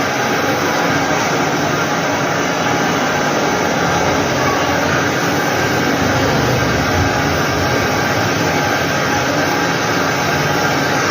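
A machine running steadily: a continuous mechanical noise with a faint steady hum in it.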